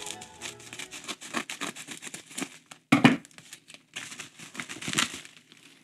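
Plastic bubble wrap crinkling and crackling as it is handled and snipped open with Milwaukee scissors, with a louder thump about three seconds in.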